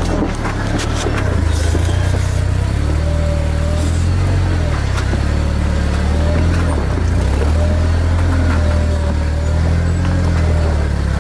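Jeep engine running steadily at low revs as it crawls over a rocky trail, with a few sharp clicks of rocks under the tyres in the first couple of seconds.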